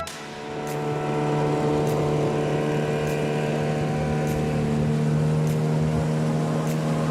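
Boat motor running at a steady pitch, coming up over the first second and then holding even.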